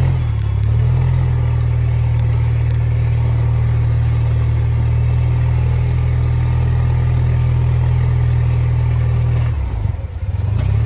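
Scooter engine running steadily at low speed. Its sound dips and breaks up briefly near the end.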